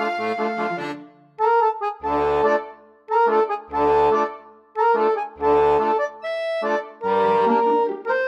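Background accordion music: chords played in short phrases separated by brief gaps, with a low bass note under several of them.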